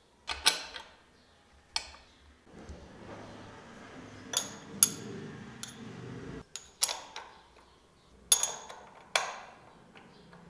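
Flat metal spanner from a Royal Enfield Himalayan's stock toolkit clinking against the motorcycle's bolt heads and axle nut as it is fitted on and pulled off: a dozen or so sharp metallic clinks at uneven intervals.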